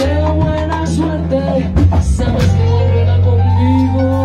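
Live salsa band playing: a woman's lead vocal over a steady bass line, with timbales and drum kit. A few sharp percussion hits land about two seconds in.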